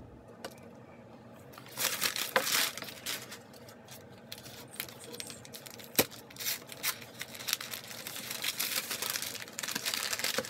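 Brown kraft packing paper rustling and crinkling in irregular bursts as hands dig through the packaging, starting about two seconds in. There is a single sharp tap about six seconds in.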